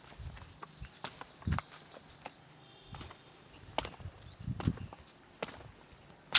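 Footsteps on an outdoor path or steps, making irregular soft thuds and scuffs. Behind them runs a steady high-pitched chirring of insects.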